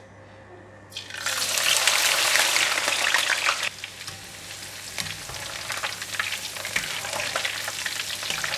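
Ginger strips hitting hot deep-frying oil about a second in, setting off a loud, crackling sizzle. The sizzle drops off suddenly a few seconds later and goes on more softly as the ginger fries and is stirred with a wire strainer.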